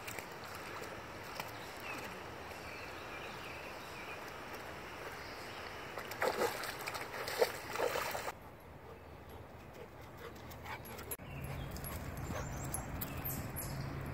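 Siberian husky stepping through the shallows at a pond's edge, a short run of splashes starting about six seconds in, over a steady outdoor background hiss.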